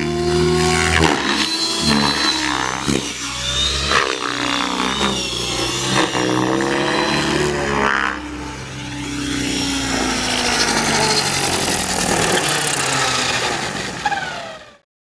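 Align T-Rex 600E electric RC helicopter in stunt flight: motor and rotor whine rising and falling in pitch as the load changes through the manoeuvres. The sound cuts off abruptly near the end.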